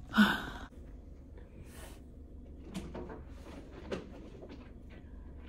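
A sharp knock or clatter just after the start, then faint scattered clicks and a brief rustle of objects being handled.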